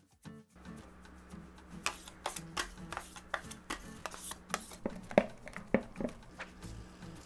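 Metal scrapers scraping and knocking on a marble slab as melted dark chocolate is spread and gathered for tempering. The sharp scrapes and taps start about two seconds in and come roughly twice a second.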